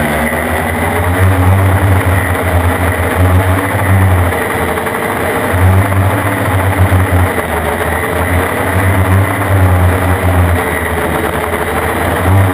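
Homemade Arduino quadcopter's electric motors and propellers running loud and steady as it lifts off and climbs, heard up close from a camera on its frame. The pitch wavers as the motor speeds keep adjusting, over a low rumble that comes and goes.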